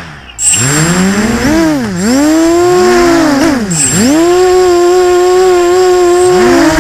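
FPV quadcopter's brushless motors whining, heard from the camera on board. The pitch swoops down and back up several times as the throttle is cut and reapplied, with one near-dropout right at the start, then holds steady for a couple of seconds before dipping again near the end.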